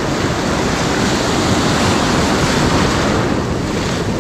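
Ocean surf breaking and washing up the beach: a loud, steady rush of water that eases a little near the end.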